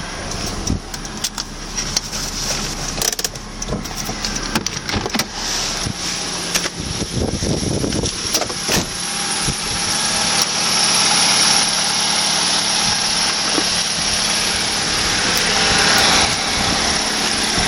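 An engine running steadily, getting louder over the second half. In the first half it is mixed with many short knocks and rubbing from the handheld camera being moved about.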